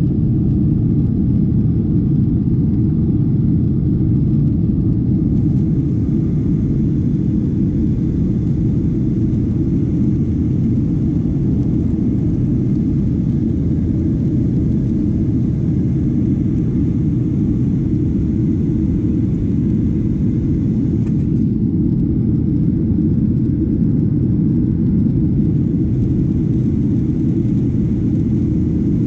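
Jet airliner cabin noise in flight during the climb after takeoff: a steady low rumble of engines and airflow heard inside the cabin at a window seat, unchanging throughout.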